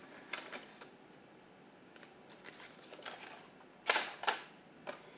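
Gouache paint tubes clicking and knocking as they are handled and set into a plastic storage tray. A few light clicks come first, then two sharper knocks about four seconds in and one more just after.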